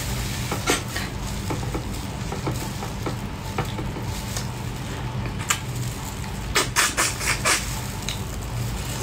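Eating sounds: sauce-soaked Korean-style spicy marinated crab squeezed and handled in a plastic-gloved hand, with a metal spoon working on rice, giving wet sticky noise and scattered clicks over a steady low hum. A quick run of sharp clicks comes near the end as the crab piece reaches her mouth.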